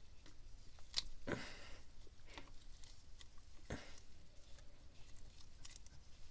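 Faint handling noises as gloved hands work a greased rubber impeller into the raw-water pump housing of a Yanmar 3YM30 diesel: scattered clicks, taps and rubbery squishing, with a sharp click about a second in as the loudest sound.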